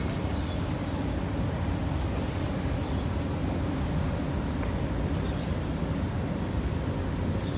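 Ferry's diesel engines running steadily: an even low rumble that holds without change.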